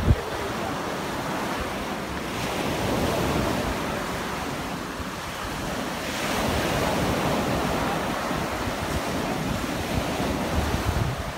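Loud surf breaking and washing up a sandy beach, swelling about two and a half seconds in and again around six seconds. Wind buffets the microphone throughout.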